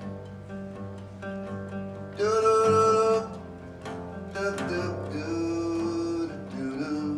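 Live acoustic song: guitar strumming under a singer's voice, which slides up into a long, loud held note about two seconds in, then holds two lower notes later on.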